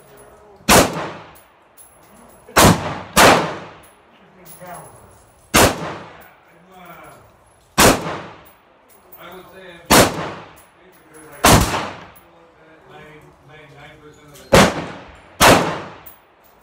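AR-15 rifle firing single semi-automatic shots at an uneven pace, nine in all, each with a short echoing tail.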